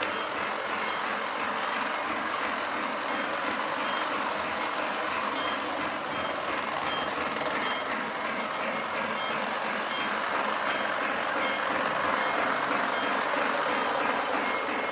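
Lionel Pennsylvania Flyer Lion Chief O-gauge electric toy train running around its track: a steady loud rumble of the locomotive's motor and wheels on the track, with a fast rough rhythm and faint short high beeps every second or so.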